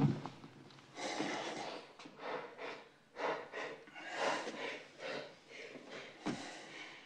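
A man gasping and panting for breath in a string of short, uneven breaths and wheezes as he recovers after being choked.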